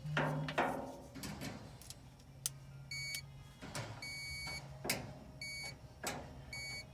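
Short electronic beeps repeating about once a second, starting about three seconds in, with sharp clicks between them over a low steady hum.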